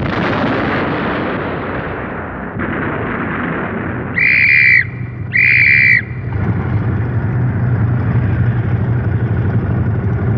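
An explosion rumbles and dies away. Then come two short high-pitched blasts about a second apart, followed by motorcycle engines running steadily.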